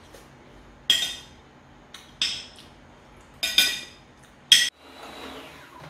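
A metal spoon clinking against a plate, about five sharp strikes each with a short ring. The sound cuts off suddenly near the end.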